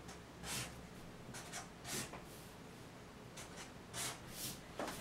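Felt-tip marker drawing on paper: a string of short, separate scratchy strokes at an uneven pace.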